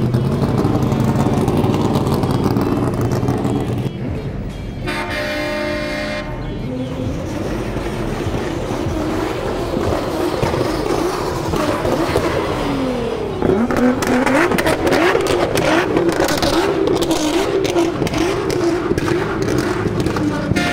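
Show cars and trucks driving slowly past, engines running and revving, with a long horn blast about five seconds in and engine revs swooping up and down around the middle.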